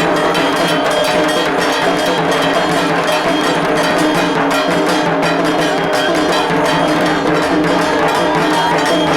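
Loud, fast, unbroken percussion: drumming with metal bells or gongs ringing steadily over it, the kind of dhak-and-kansar music played at an idol immersion.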